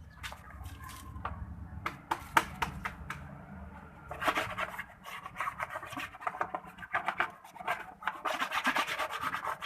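A dirty lovebird cage being scrubbed and scraped clean: quick runs of rubbing and scraping strokes, with a sharp knock about two seconds in and the busiest scrubbing about four seconds in and again near the end.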